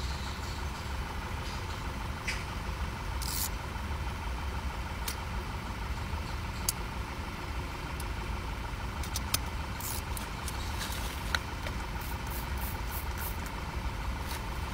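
Tyre-plug tools being handled at a car tyre: scattered small clicks and scrapes as the plug is set and trimmed, over a steady low hum.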